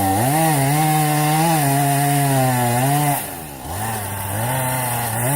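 Two-stroke chainsaw running at high revs while cutting into a tree trunk, its pitch wavering under load. About three and a half seconds in, the revs drop briefly, then climb back up.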